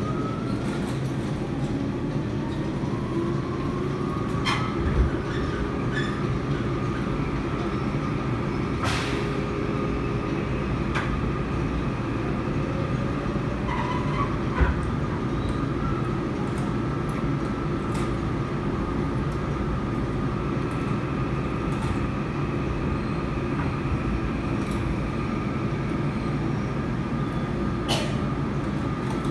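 Seoul Metro 4000-series subway train with Toshiba IGBT VVVF drive running, heard from inside the car: a steady rumble of wheels on rail with a motor whine that rises in pitch over the first few seconds as the train picks up speed, then holds steady. A few sharp knocks sound over the rails along the way.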